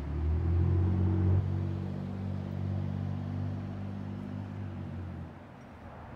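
An engine running with a low, steady hum, loudest in the first second and a half, then dropping away about five seconds in.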